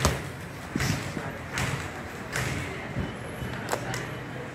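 Boxing gloves landing punches during sparring: about six sharp thuds, roughly one a second, the first the loudest.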